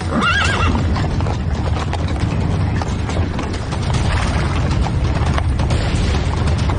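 A horse whinnying in the first second, a wavering call that rises and falls, over a steady clatter of galloping hooves.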